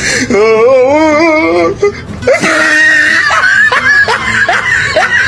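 A drawn-out, wavering vocal wail, then a quick run of short, rising, laugh-like cries.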